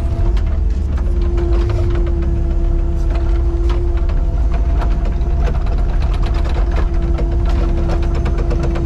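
Excavator's diesel engine running with a steady whine held at one pitch and frequent clicks and rattles from the machine.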